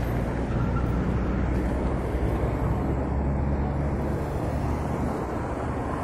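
Road traffic: car engines running close by, a steady low rumble.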